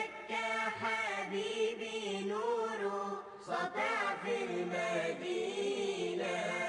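Background vocal music: a voice chanting a wavering melody over held low notes.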